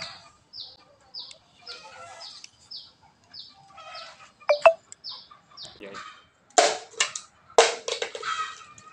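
A bird chirping over and over, a short falling chirp roughly every half second, over the first half or so. Sharp, louder knocks and rustling come a little after the middle and twice near the end.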